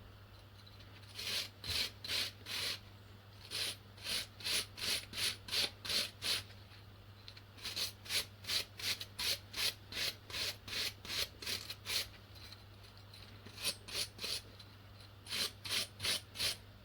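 Hand wire brush scrubbing a used metal suspension part clean, in quick back-and-forth strokes about three a second, coming in runs with short pauses between.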